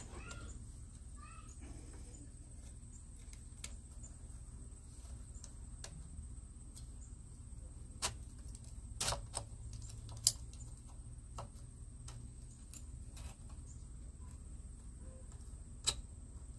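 Scattered clicks and light ticks of a hand-cranked bar-mounted chainsaw sharpener as its file works the cutters of the chain. The sharpest clicks come about eight to ten seconds in and again near the end.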